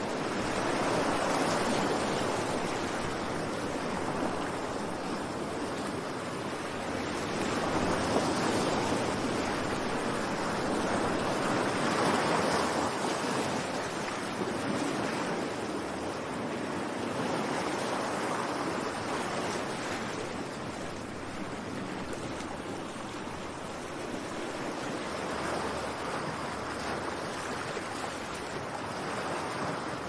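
Sea surf breaking and washing up a sandy beach: a steady rush of waves that swells and eases every few seconds.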